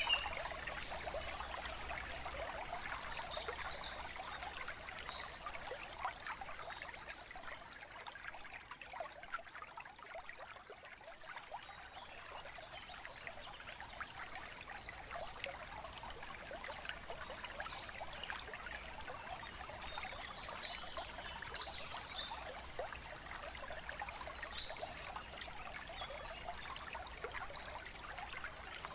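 Steady trickling of running water, with brief high chirps now and then.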